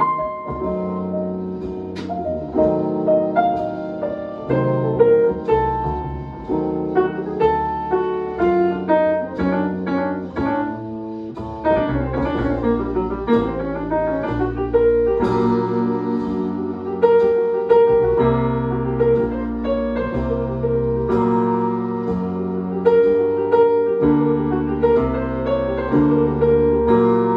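Piano music: a continuous piece of chords and melody, the notes changing about every second.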